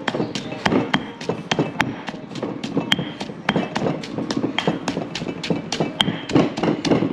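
Stone pestle pounding chili paste in a stone mortar: a steady run of knocks, about two strokes a second.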